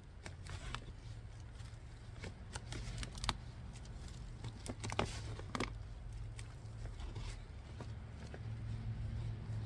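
Crunching and scraping of damp, loose potting soil being dug and scooped by hand from a fabric grow bag, in short irregular crackles with a few sharper knocks, over a steady low rumble.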